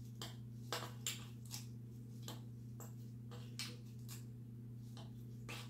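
Faint, irregular small clicks and rustles of jute twine being wound and pushed tight around a plastic candy cane, over a low steady hum.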